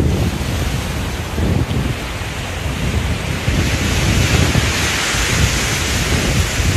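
Wind buffeting the phone's microphone in uneven low gusts over the hiss of small waves washing up the sand; the hiss grows louder about halfway through.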